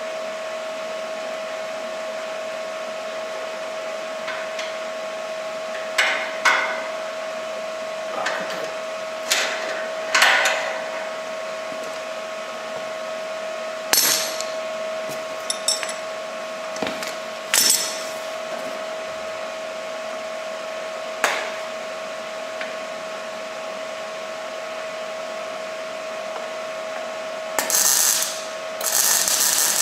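Steel parts knocking and clinking as they are handled and tapped, about a dozen separate strikes, over a steady high hum. Near the end a power tool starts up and runs.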